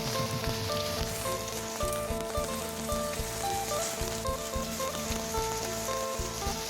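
Steady hiss of heavy rain, with a simple background melody of short held notes.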